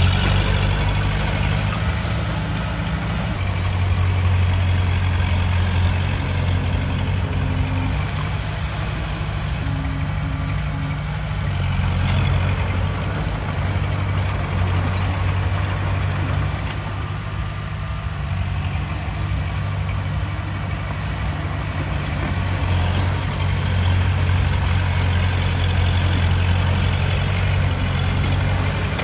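Heavy diesel engine of earthmoving machinery running continuously. Its low drone swells and eases several times as the load changes.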